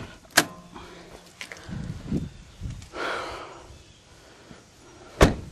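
Clicks and clunks from opening a car's hood: a sharp click about half a second in, footsteps and rustling on dirt, then a louder sharp clunk near the end.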